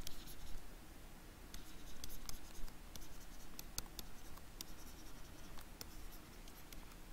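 A pen stylus writing on a tablet surface as words are handwritten: light scratching with many small, sharp ticks of the tip scattered throughout.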